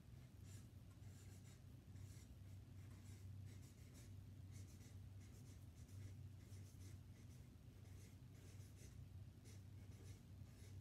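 Faint marker strokes on chart paper: a run of short, irregular scratches as a line of words is written, over a steady low hum.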